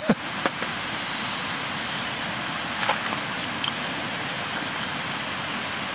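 A steady rushing hiss runs throughout. A sharp light knock comes at the very start, and a few faint clicks follow about half a second, three and three and a half seconds in.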